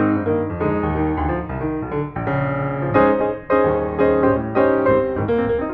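Background piano music, a steady run of struck notes and chords.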